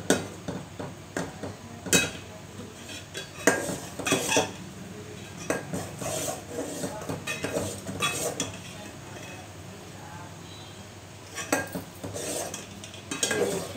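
Metal spoon clinking and scraping against a metal cooking pot while soup is stirred, in irregular knocks with a quieter stretch a little past the middle.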